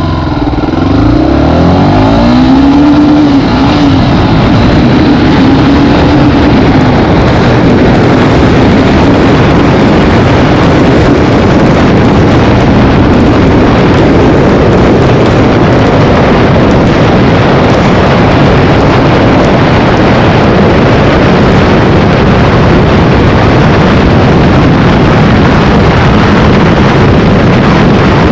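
Tornado 300 motorcycle engine accelerating hard, its pitch climbing and dropping back several times as it shifts up through the gears in the first few seconds. It then runs steadily at full throttle at top speed, mixed with a heavy, even rush of wind.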